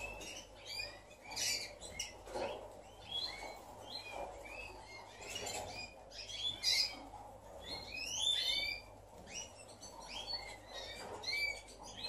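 A chorus of many small caged finches chirping at once: short, quick chirps overlapping several times a second, none standing out as one song.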